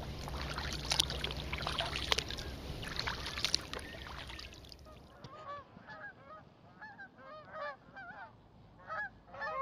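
Kayak paddling on a calm lake: paddle strokes with water splashing and dripping over a low rumble. About halfway through this gives way to geese honking repeatedly, in short bursts that come faster near the end.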